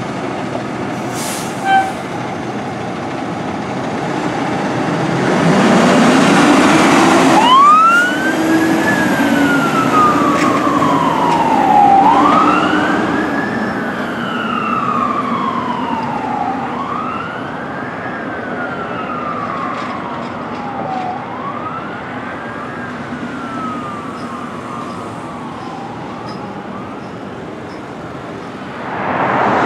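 Pierce fire truck siren wailing on a call. About eight seconds in it sweeps quickly up and falls slowly, roughly every four seconds, four times, growing fainter as the truck moves away, over truck engine and road noise.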